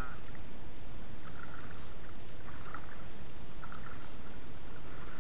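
Shallow water sloshing as a thrown cast net is hauled in by its rope, with soft splashes every second or so over a steady low noise.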